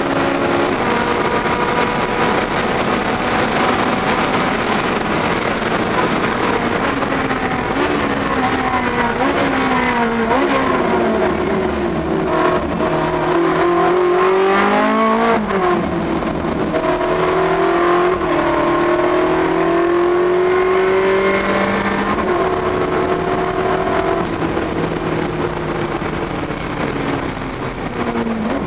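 Car engine heard from inside the car on a track lap: it runs steadily, then repeatedly drops and climbs in pitch as the car slows, changes gear and accelerates again, with a longer steady climb later and a fall in pitch at the end, over road and wind noise.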